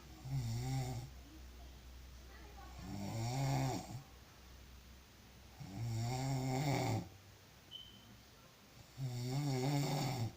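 A person snoring heavily in deep sleep: four drawn-out, buzzing snores, each about a second long, coming roughly every three seconds.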